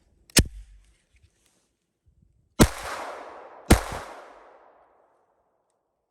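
Three shots from a Glock 44 .22 LR pistol, the first about half a second in and the next two about a second apart near the middle, each of the later two trailing off in a long echo.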